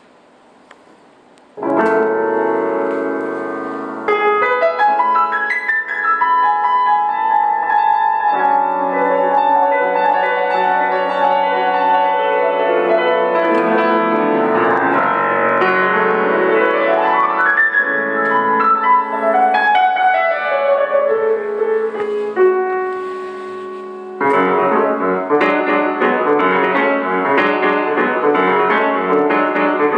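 Solo grand piano playing jazz-fusion. It comes in with a chord about two seconds in, has a fast rising run around the middle, lets a note ring and fade, then goes on with fuller, louder chords near the end.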